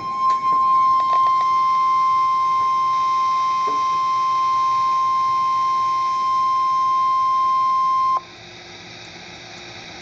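Weather-radio emergency alert tone: one steady, loud beep near 1050 Hz held for about eight seconds, cutting off sharply to faint radio hiss. It is the warning alarm that precedes a severe thunderstorm warning broadcast.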